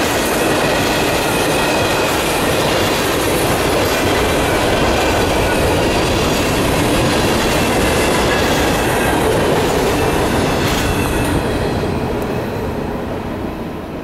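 Freight train of tank cars and covered hoppers rolling past, steel wheels running on the rails in a steady rumble that fades away over the last few seconds as the end of the train goes by.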